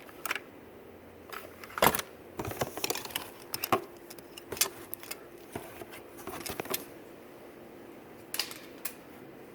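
Clothing being handled: irregular rustling and sharp clicks as garments are pulled out of a box and unfolded, busiest in the first two-thirds with a last pair of clicks near the end.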